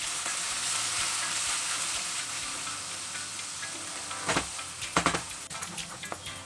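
Masala paste sizzling in a hot frying pan as freshly added water meets it, while a spatula stirs it. The sizzle fades a little, and a couple of louder scrapes of the spatula come about four and five seconds in.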